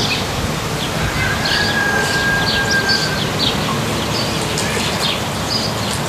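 Birds chirping, many short high calls, over a steady outdoor background rumble, with one long steady whistle lasting about two seconds starting about a second in.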